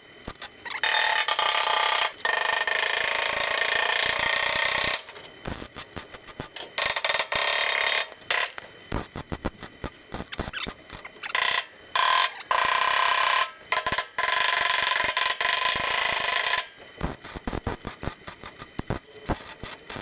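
MIG welder crackling as it welds a steel repair panel onto a car body: long runs of several seconds near the start and in the middle, with quick stuttering bursts of short spot welds in between.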